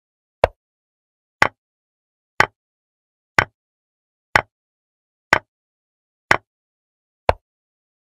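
Chess app move sound effects: a short wooden click for each piece placed, eight in a row at about one a second. The first and last clicks sound duller and lower than the brighter ones in between.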